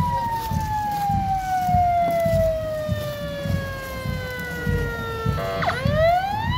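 Escort vehicle's electronic siren wailing in one slow falling sweep, a brief rapid stutter about five and a half seconds in, then the pitch climbing again, over an irregular low rumble.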